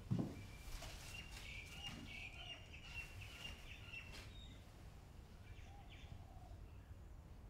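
Small birds chirping in a quick run of high chirps for about three seconds, then a few fainter chirps, over faint outdoor background noise. A short thump at the very start.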